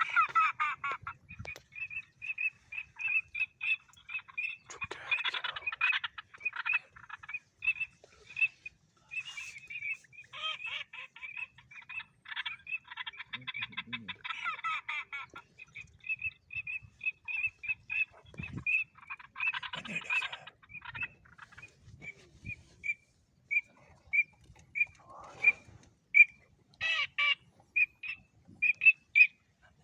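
A long series of short, high-pitched animal calls repeating two or three times a second, broken now and then by bursts of fast chattering calls.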